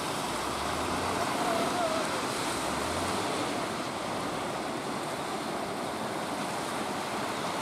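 Surf breaking and washing in a steady, even rush, with a faint low hum underneath during the first three seconds.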